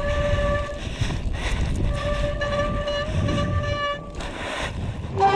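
Mountain bike disc brakes squealing in long steady tones, twice: once at the start and again for about two seconds midway. Underneath is a constant rumble of wind and tyres on the trail. A brief, louder, lower tone comes just before the end.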